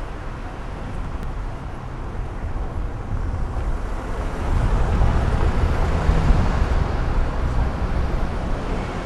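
City street traffic: a steady rumble of passing cars and engines, growing louder about halfway through.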